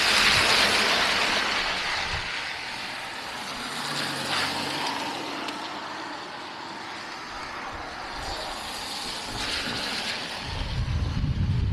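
Passing street traffic: a hiss of vehicle tyres that swells loudest at the start and fades, with smaller swells later. Low, gusty wind buffeting the microphone comes in near the end.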